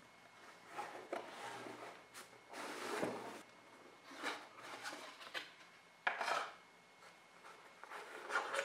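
Cardboard headphone packaging being handled and opened: the outer sleeve slid off the box and the inner box opened, with soft rubbing and scraping of cardboard. The loudest scrape comes suddenly about six seconds in, with another shortly before the end.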